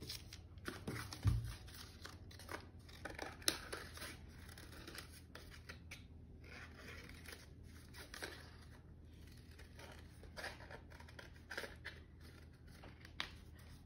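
Scissors snipping through a paper plate: a run of short, irregular cuts with rustling paper. One low thump about a second in.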